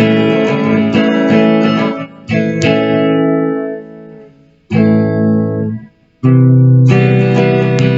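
Guitar playing the song's chord progression: chords struck and let ring, with short breaks between them, then steady repeated strumming from about six seconds in.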